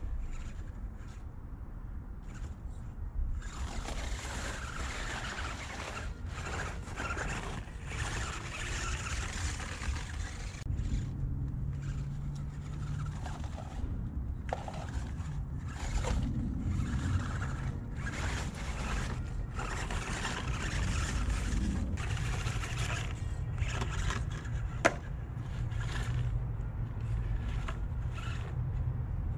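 A 1/24-scale ECX Barrage 4WD RC crawler driving over dirt and dry leaves, with scraping and rustling in patches over a steady low rumble. There is one sharp click about 25 seconds in.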